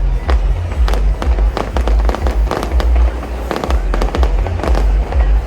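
Fireworks display: a rapid run of bangs and crackles, many shells bursting a fraction of a second apart, over a continuous deep rumble of booms.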